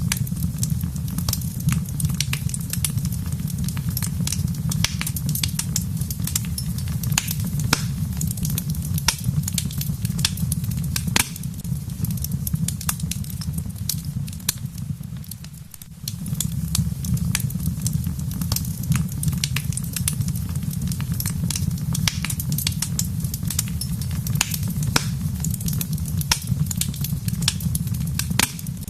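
Wood fire crackling in a fireplace, with many sharp pops and snaps over a steady low rumble. The rumble fades and briefly drops out about halfway through, then comes back.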